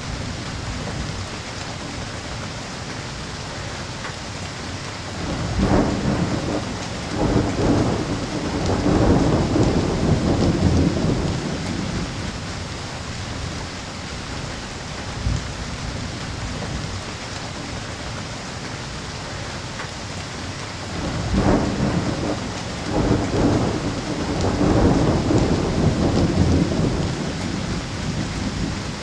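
Steady rain with two long rolls of thunder, the first building about five seconds in and lasting several seconds, the second about twenty-one seconds in.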